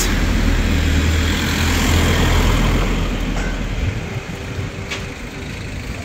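Motor vehicle engine running close by, a steady low rumble that fades away about four seconds in.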